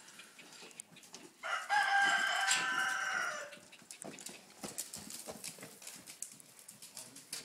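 A rooster crowing once, a single call of about two seconds.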